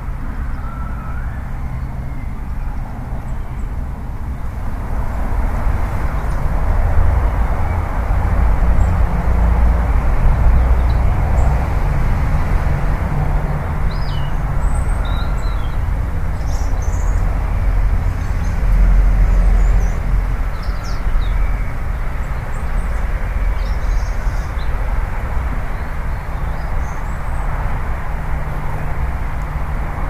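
Steady outdoor low rumble that swells and eases twice, with a few faint high bird chirps in the middle.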